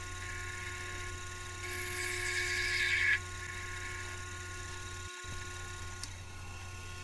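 Sherline benchtop lathe running with a steady motor hum while its tool takes light facing cuts on a brass washer. A louder, higher cutting hiss comes in about two seconds in and stops about three seconds in.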